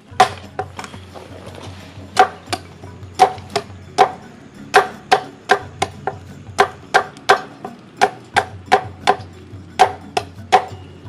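Knife striking down again and again, chopping and pounding shallots, garlic, chilies and candlenuts into a spice paste: sharp knocks, about two to three a second, with a short pause about a second in.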